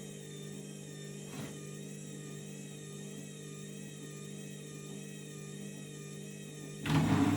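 Candy washing machine's motor turning the drum at a low steady speed during the final mini spin, a steady hum with a faint click about a second and a half in, the load unbalanced. Near the end a sudden, much louder rattling noise breaks in.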